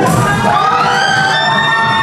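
Indian film dance music playing loudly over the hall's speakers, with the audience cheering and shouting over it.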